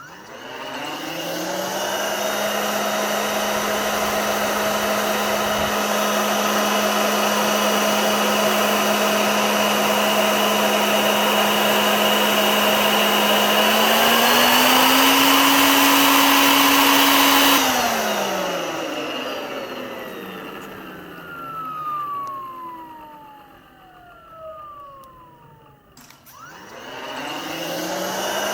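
Vacuum cleaner motor switched on: it spins up to a steady whine over a rush of air. About halfway through the pitch steps up and the sound grows louder. It is then switched off, and the whine falls away as the motor winds down. Near the end a click is followed by the motor spinning up again.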